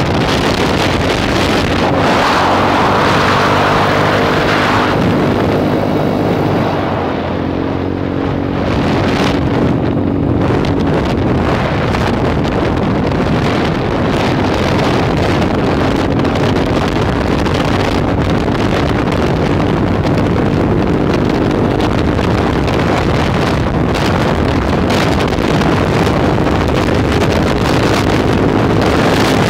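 Small motor scooter engine running at cruising speed, with wind noise on the microphone throughout. The engine tone shifts a little as the rider eases off and picks up speed on the bends.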